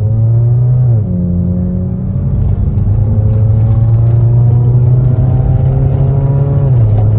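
Honda Civic four-cylinder engine accelerating through an aftermarket exhaust with its electronic muffler valve fully open, giving a deep drone. The pitch climbs, drops sharply about a second in, climbs slowly again, then drops near the end as the automatic gearbox shifts up.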